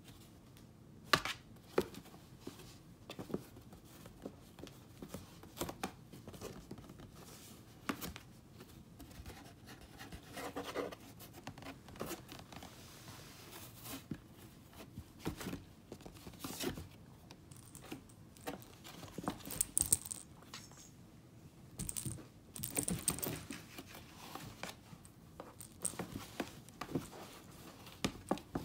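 Kitten moving about inside a maze of taped cardboard boxes: scattered taps, scrapes and rustles of paws and a plush toy mouse against the cardboard, a few louder scrapes past the middle.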